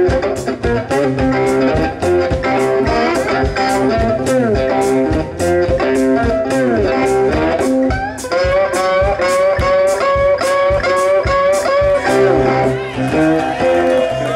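Live blues band: an amplified cigar box guitar plays a lead line with bent, sliding notes over a steady drum beat of about two hits a second.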